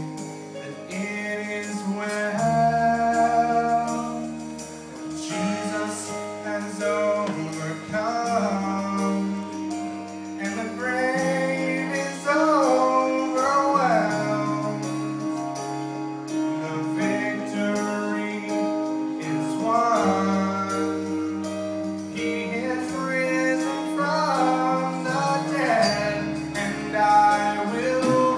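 Live choir music: sung voices holding long notes over instrumental accompaniment, with low bass notes that change every couple of seconds.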